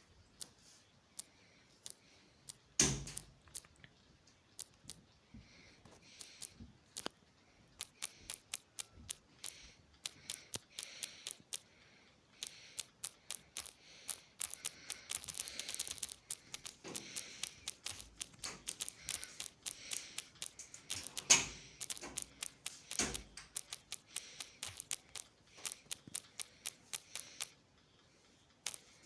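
Many small, irregular clicks and snaps, thick in stretches, with a few louder knocks about three seconds in and twice around the twenty-one to twenty-three second mark.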